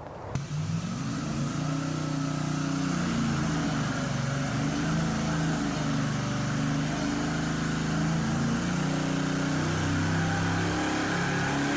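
GM LS V8 on an engine dyno, running through long-tube headers at a steady, fairly low speed, its pitch wavering slightly up and down. It comes in suddenly just after the start.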